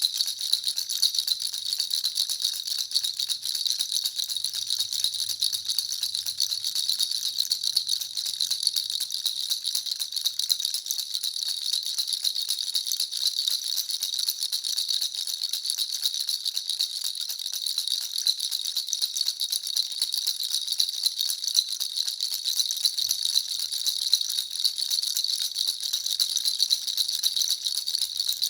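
Baby rattle (jhunjhuna) shaken continuously: a fast, steady, high-pitched jingling rattle with no pauses.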